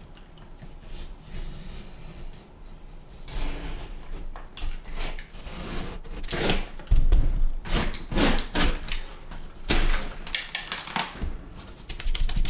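Drywall being scored and cut with a blade, a run of irregular rasping strokes, with a loud knock about seven seconds in.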